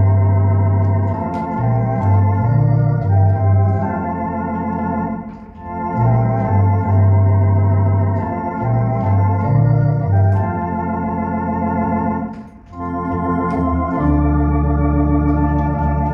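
Electronic church organ playing a hymn: sustained chords with vibrato over a pedalboard bass line that changes notes often. The music dips briefly between phrases about five and twelve seconds in.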